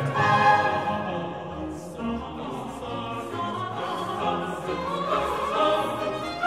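Classical background music: voices singing in sustained notes with an orchestra.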